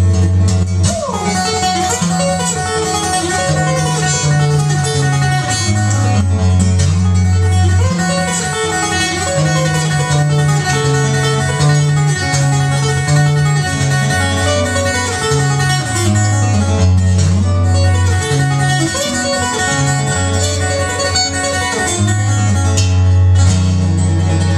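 Solo acoustic guitar played fingerstyle: low bass notes held and changed under a moving melody, with some sliding notes.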